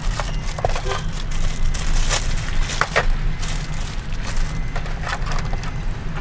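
Plastic packaging crinkling and crackling in irregular bursts as a walkie-talkie charger and radio are unwrapped and handled, over a steady low hum in the car cabin.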